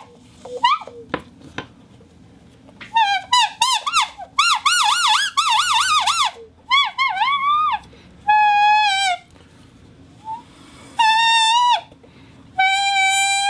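Bottle whistle blown in a run of quick up-and-down warbling chirps, then a few separate held notes, the last long and sliding gently down in pitch.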